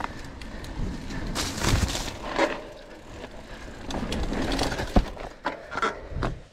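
Mountain bike riding over a rough forest trail: an irregular run of crunching, rattling and knocking from the tyres and bike, with one sharp knock about five seconds in, the loudest sound.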